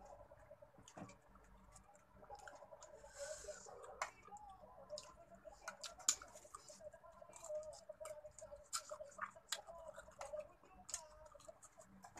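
Close-up eating sounds of seafood being eaten by hand and with a spoon: lip smacking, finger sucking and chewing, with scattered sharp clicks of a spoon and shells against plates.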